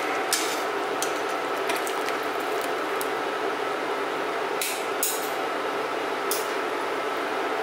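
Metal utensils clinking and scraping against a stainless-steel pan while blanched spinach is lifted out of the water, with several short sharp clinks over a steady background hum.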